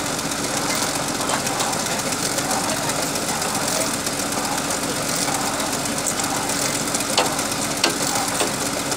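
Borewell drilling rig's engine running steadily at idle, with two short sharp metallic clicks near the end as tools strike the drill pipe.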